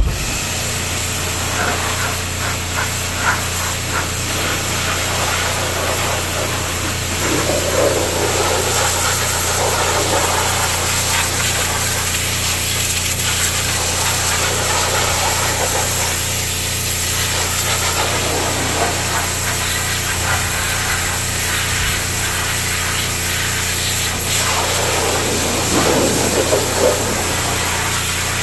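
Pressure washer kicking in and running steadily, its motor humming under the hiss of the jet. The spray is blasting degreaser and caked-on grease off a tractor engine, and the splash swells and fades as the wand moves over different parts.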